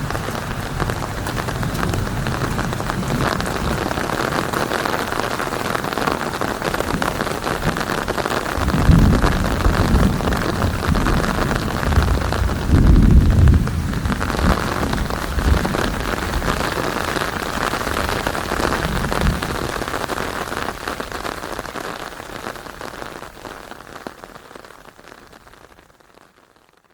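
Steady heavy rain with low rolling thunder swelling twice, about a third and a half of the way in, and once more faintly later; the whole storm sound then fades out to silence.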